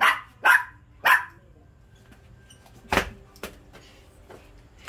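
A dog barking three times in quick succession, followed by a sharp knock about three seconds in.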